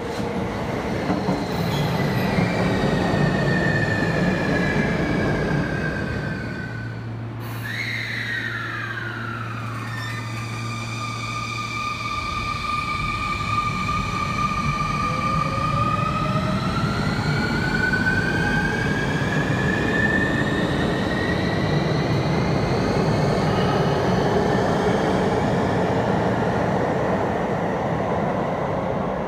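A Sotetsu electric commuter train's motor whine falls in pitch as it brakes, with a click about seven seconds in and a steady low hum for a few seconds after. Then the whine rises steadily in pitch as the train pulls away and accelerates, over the rumble of wheels on rail.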